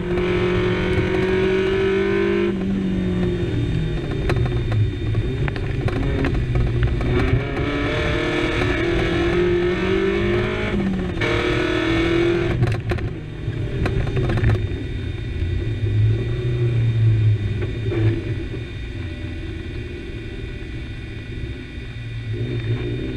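Suzuki Samurai rally car's engine heard from inside the cabin, revving up and dropping back several times as it is driven hard. Toward the end it runs at lower, steadier revs.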